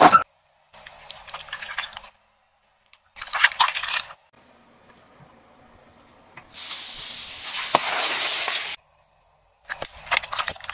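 A car tyre crushing plastic bottles and drink containers in a string of short, separate bursts: crackling and crunching plastic with splashing liquid. The longest burst is a hissing spray of liquid lasting a couple of seconds, with a sharp crack partway through.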